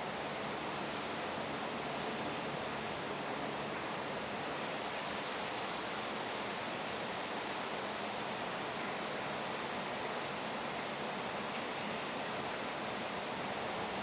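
Steady, even rush of falling water, unchanging throughout.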